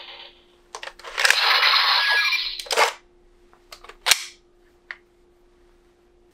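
Bandai DX Hiden Zero-One Driver toy belt playing a loud electronic sound effect from its speaker for about a second and a half. Then come sharp plastic clicks as the Progrise Key is taken out of the driver. A faint steady electronic tone hums underneath.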